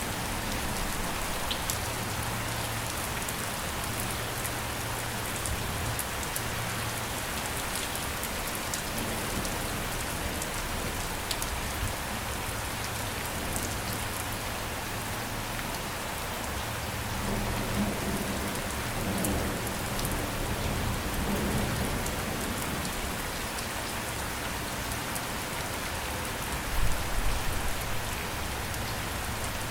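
Steady heavy rain falling on surfaces, a dense even hiss with scattered drop ticks. A low rumble swells in just past the middle, and a short, louder low thump comes near the end.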